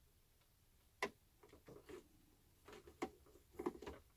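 Faint, irregular clicks and ticks of a small screwdriver turning the screw on the plastic steering servo of a WPL B-36 RC truck, unscrewing the servo to re-centre it. One sharper click comes about a second in, with a run of small clicks near the end.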